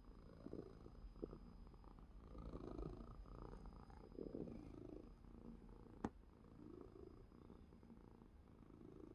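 Calico cat purring faintly, the purr swelling and fading every couple of seconds. A single sharp click is heard about two-thirds of the way through.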